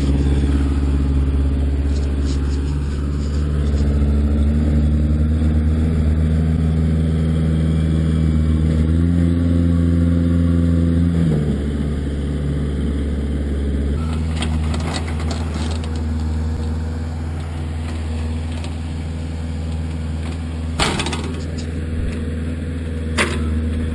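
Kubota backhoe's diesel engine running steadily, rising in pitch for a couple of seconds about nine seconds in and then dropping back. Two sharp knocks come near the end.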